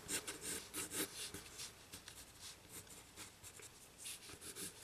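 A red pencil scratching on paper in quick, light sketching strokes, several a second, faint.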